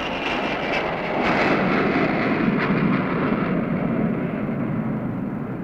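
Jet noise from the four turbofan engines of an Ilyushin Il-76 transport flying low overhead: a loud, steady rush whose higher hiss dulls over the second half.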